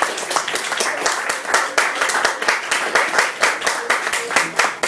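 Audience applauding, many pairs of hands clapping at once.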